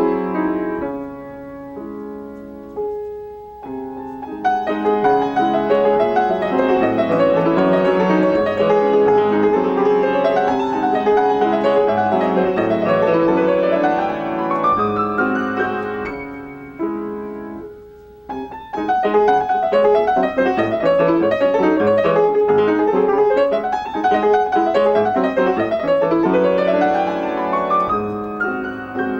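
Solo grand piano playing a classical piece: dense passages of many notes, twice climbing in a quick upward run, with a brief lull about three seconds in and another a little past the midpoint.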